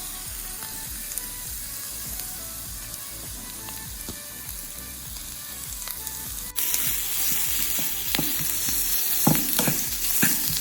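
Minced chicken frying in a pan with onion and capsicum, a steady sizzle. It suddenly gets louder about six and a half seconds in, and near the end a few short scraping strokes of stirring come through.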